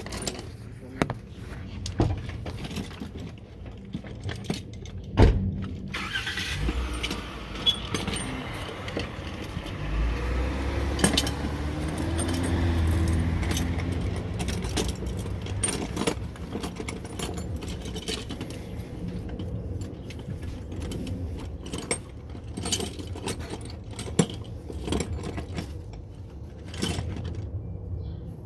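Metal hand tools clicking and clinking in irregular short strikes during work under a car. A vehicle passes by, swelling and fading through the middle.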